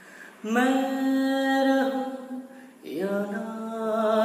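A man singing a Hindi song unaccompanied, holding a long note on the word "main", then starting another long, wavering sung phrase about three seconds in.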